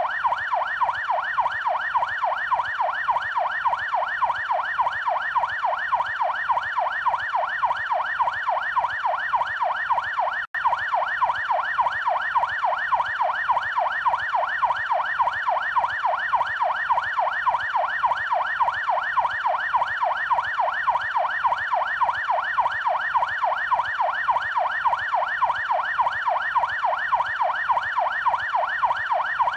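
Police yelp siren: a fast wail sweeping up and down about three times a second without let-up, cut by a split-second gap about ten seconds in.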